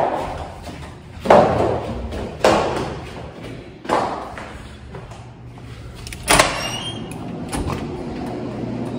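Footsteps going down an echoing block-walled stairwell, with a few heavy thuds that ring on in the space. About six seconds in, a sharp metallic clack with a brief ringing, as a stairwell door's latch releases.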